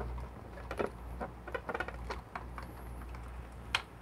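Small metal clicks and scrapes of a portafilter being worked into the group head of a La Pavoni lever espresso machine: several irregular taps, the sharpest near the end, as the stiff fit is locked in.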